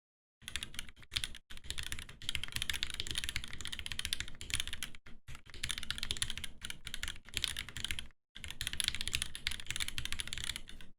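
Continuous fast typing on an Aeboards Constellation 65 mechanical keyboard in top-mount configuration, fitted with Durock switches lubed with 205g0 and filmed with 0.15 mm TX films: a dense run of key clacks broken by a few brief pauses.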